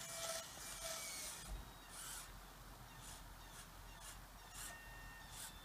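Faint whine of the RC loader's small geared DC motor driving its lead-screw cylinder fades out in the first second as the bucket dumps dirt. Then come a series of short scratchy rasps, roughly one every half second to a second, from the bucket's screw drive, which is noisy from play in the screw.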